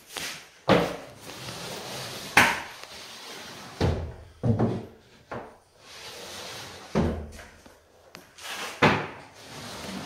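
Tapepro compound applicator tube with a CF-75 corner finisher head being worked along drywall internal corners: about six sharp knocks as the tool is set against and pushed through the corner, with scraping between them.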